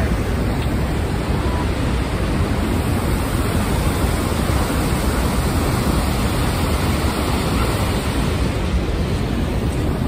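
Large waterfall plunging over a cliff close by: a loud, steady rush of falling water.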